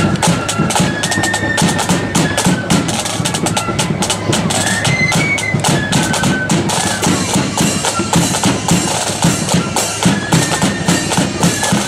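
Marching flute band playing a tune: a high melody line over rapid snare drumming and a pounding bass drum.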